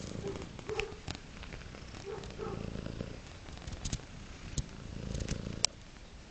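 Domestic cat purring steadily up close, with a few soft clicks and rustles and one sharp click near the end.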